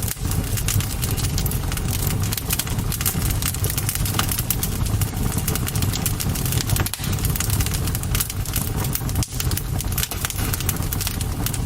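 Campfire burning, with many quick crackles and pops over a steady low rumble.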